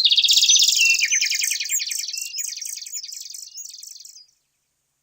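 A bird's rapid, high chirping trill that starts abruptly, steps up and down in pitch, and fades away over about four seconds before cutting off.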